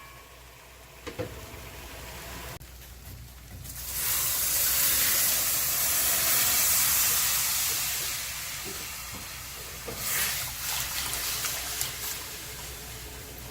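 Cooking pot hissing loudly with steam or sizzle, swelling up about four seconds in and fading away after about five seconds. A few light knocks follow near the end.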